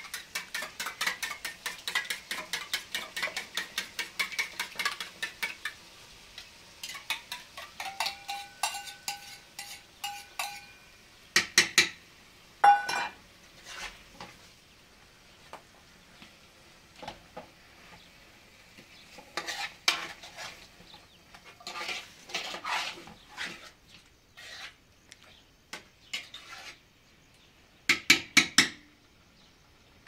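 Metal pots and utensils clinking and scraping. A run of quick, even strikes lasts about five seconds, then come scattered clinks with short ringing tones and a few sharp knocks.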